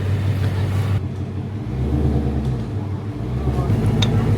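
Ford Mustang V8 engine running at low speed as the car is manoeuvred, a steady low rumble whose note deepens for about two seconds in the middle.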